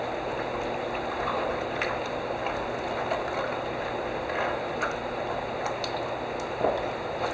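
Liquid in a black-oxide coating tank bubbling and gurgling steadily, with scattered small pops.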